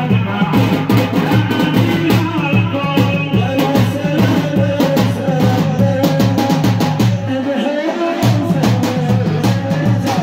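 Amplified Yemeni nasheed music with a steady, repeating drum and bass beat under held melodic tones. The bass drops out briefly about eight seconds in.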